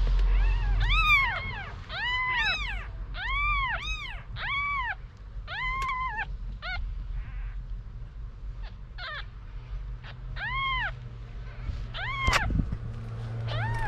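Newborn kitten mewing: about a dozen short, high, thin cries that rise and fall in pitch, coming in bunches with brief pauses. A low rumble runs underneath, and there is one sharp click just after twelve seconds in.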